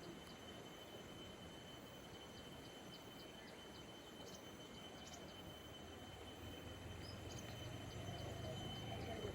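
Faint rural outdoor ambience: a steady high thin whine with scattered short bird chirps over a soft noise bed, and a low rumble that grows louder over the last few seconds.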